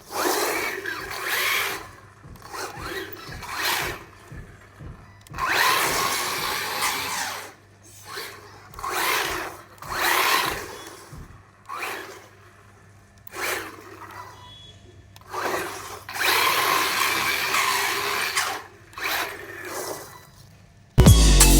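A small electric motor whirring in short bursts, starting and stopping about a dozen times, the bursts lasting from a moment to a couple of seconds. It is most likely the toy RC car's motor being throttled on and off.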